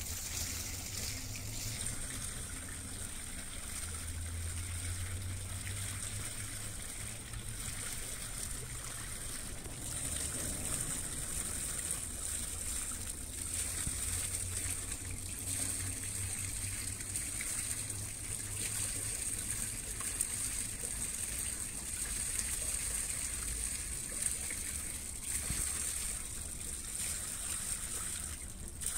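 Water rushing and washing along the hull of a large river tanker passing close by, over a steady low rumble from the ship's engines.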